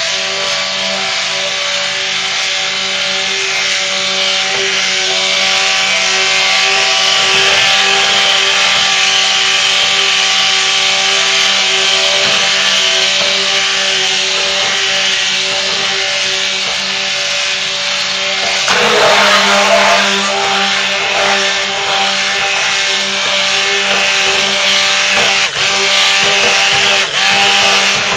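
Stick blender motor running steadily with a whining hum as it churns raw soap batter of oils and lye that is not yet fully emulsified. About two-thirds of the way through, the sound gets rougher and noisier for a couple of seconds as the blender head churns the batter.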